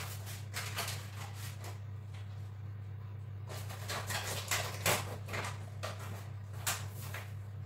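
Scattered clicks, light knocks and rustling of kitchen items being handled, in several short clusters, over a steady low hum.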